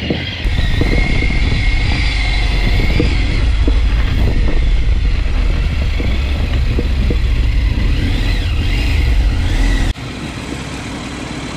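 Triumph Tiger 900 Rally Pro's three-cylinder engine running under way on a dirt track, with a heavy low rumble. About ten seconds in the sound drops suddenly to a quieter, steadier engine note.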